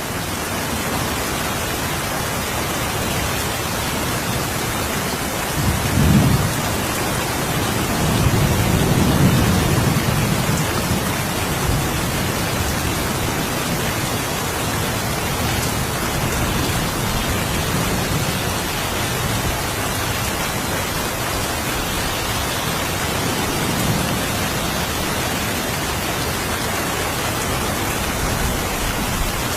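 Steady rain with distant thunder: a sudden rumble about six seconds in, a longer roll of thunder just after it, and a fainter roll later on.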